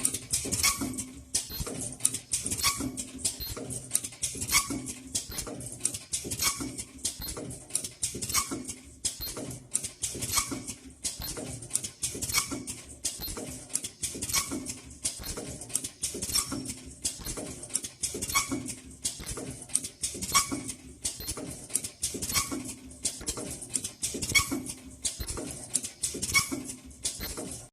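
Automatic webbing folding, welding and ultrasonic cutting machine running through its cycle: rapid clicks and knocks with short tones, the pattern repeating about every two seconds.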